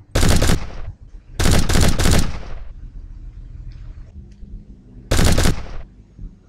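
Three bursts of rapid automatic gunfire: a short burst at the start, a longer one about a second later, and another short burst near the end.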